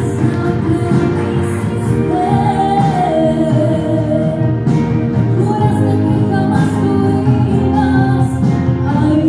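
A woman singing a song with instrumental accompaniment, the sung melody rising and falling over a steady backing.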